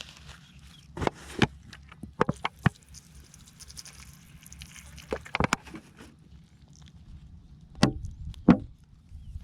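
A series of irregular sharp knocks and thuds, some in quick pairs, with the two loudest near the end.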